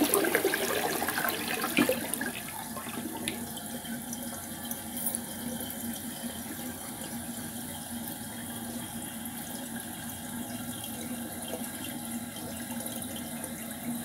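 Toilet flushing: a loud rush of water that settles about two seconds in to a quieter, steady run of water. This is a toilet that flushes very slow.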